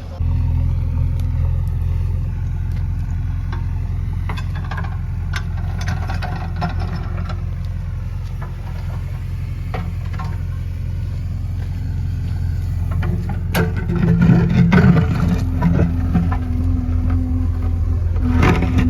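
JCB 3DX backhoe loader's diesel engine running steadily, with scattered clanks and knocks. About two-thirds of the way through it gets louder and busier, as the machine works under load.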